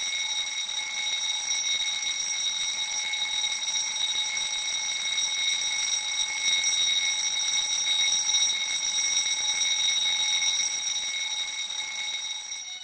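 Electric alarm bell ringing loudly and without a break, the kind of fire alarm bell heard in a school corridor; it cuts off near the end.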